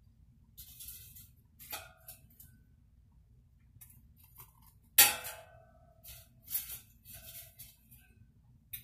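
Frozen chicken nuggets being dropped by hand into an empty air fryer basket: light clicks and knocks, with one sharp clack and a short ring about five seconds in. In between come patches of rustling from the plastic freezer bag of nuggets.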